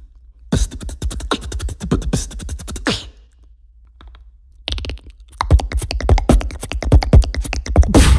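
Beatboxed mouth clicks and pops in rapid runs imitating sound effects: one run in the first few seconds, a couple of faint cracks from a real neck being cracked around four seconds in, then a longer run of quick clicks mimicking bone cracking.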